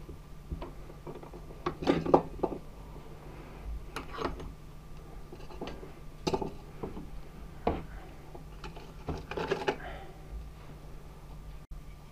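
Red bench vise being wound by its handle: the sliding handle bar and screw clink and rattle in irregular metal knocks, a second or two apart.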